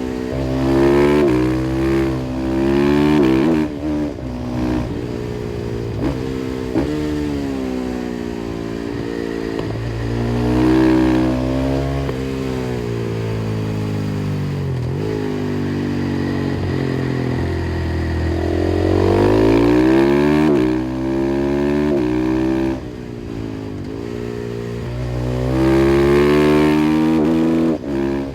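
KTM 500 EXC-F's single-cylinder four-stroke engine through an FMF exhaust, accelerating hard through the gears: the revs climb and drop back with each quick upshift. About halfway through the revs fall away as the throttle closes, then climb again for more hard pulls.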